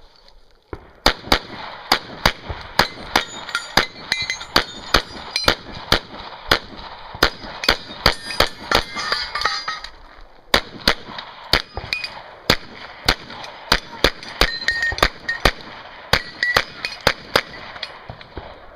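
Pistol fired in rapid strings, dozens of shots, with a short break about ten seconds in; metallic clangs ring among the shots.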